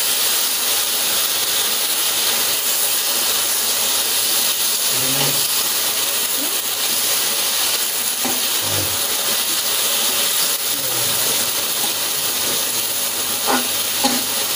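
Capsicum and onion sizzling steadily in hot oil in a kadai as they are stir-fried with a metal slotted spatula, with a few light clicks of the spatula against the pan near the end.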